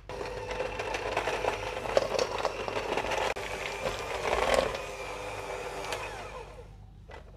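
Red KitchenAid electric hand mixer running, its beaters breaking up chilled butter cubes in a stainless steel bowl, with scattered clicks over the steady motor whine. This is the start of creaming the butter, beating it until soft and fluffy. The mixer fades and stops near the end.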